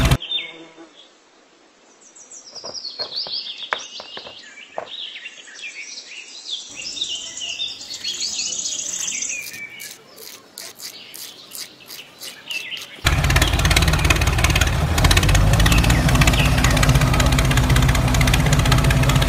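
Birds chirping, with scattered small clicks that turn into a quick rattle of gravel pouring out of a tipping toy trailer. About two-thirds of the way in, a loud, dense, steady noise cuts in and runs on.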